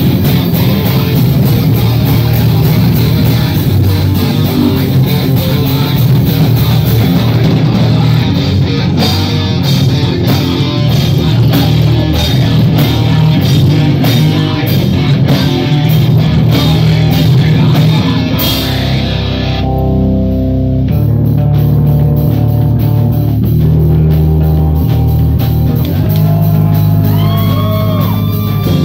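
Heavy metal band playing live: electric guitars, bass and drum kit, loud and dense. About twenty seconds in, the drums and cymbals drop out and the guitars ring on alone, with a few notes bending in pitch near the end.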